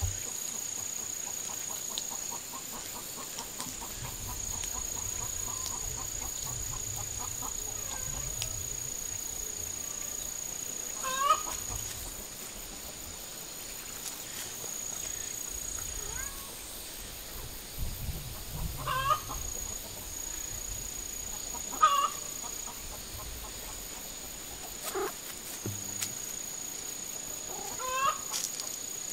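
Chickens clucking now and then, a handful of short calls spread through the stretch, over a steady high-pitched whine and a low wind rumble on the microphone.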